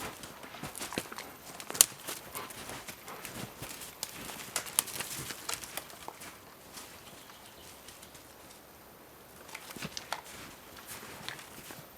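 Footsteps on a forest trail: irregular crunches and sharp clicks underfoot, thinning out for a few seconds past the middle.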